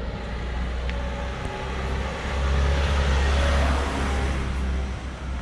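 A small van drives slowly past close by, its engine running low and steady. The sound swells to its loudest about three seconds in, then fades a little.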